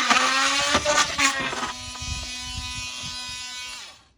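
Oscillating multi-tool buzzing as its blade cuts a nail behind a clapboard. The buzz is louder and harsher for the first couple of seconds while the blade is in the cut, then runs steady and stops near the end.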